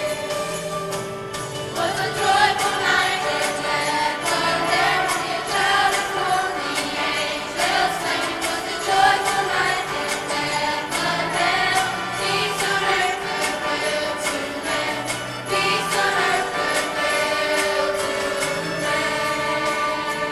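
Choir singing a Christmas song to music with steadily shaken jingle bells; the voices come in about two seconds in.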